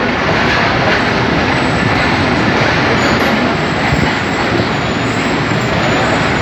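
Passenger train rolling slowly into a station, heard from an open coach window: a steady, loud running noise of wheels on rails. A faint high squeal runs through the second half.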